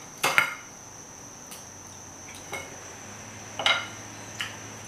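A knife and fork clinking and scraping against a plate while cutting grilled lamb: a few sharp clinks, the loudest about a third of a second in and again near the end. A steady, thin, high-pitched tone hums underneath throughout.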